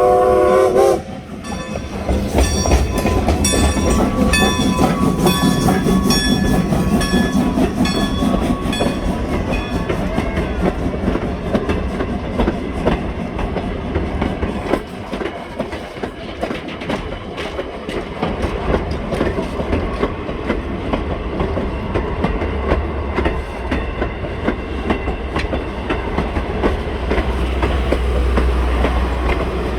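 A Strasburg Rail Road train passing close by. Its whistle sounds a multi-note chord that cuts off about a second in. Then the wheels click rhythmically over the rail joints as the cars roll past, over a steady low rumble.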